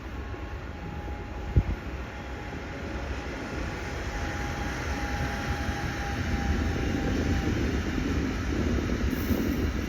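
Train rumbling and growing steadily louder, with a faint steady whine through most of it and a single sharp knock about one and a half seconds in.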